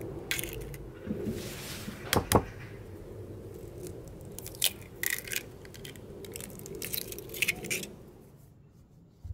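An egg being cracked: two sharp taps of the shell about two seconds in, then small clicks and crackles as the shell is broken open. The sounds fade out near the end.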